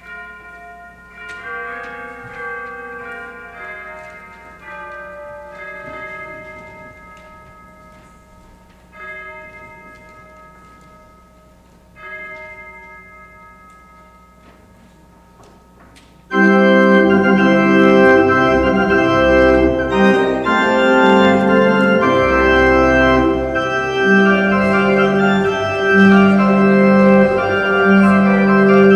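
Church organ music: quiet held chords, then about sixteen seconds in the full organ comes in much louder with deep bass notes.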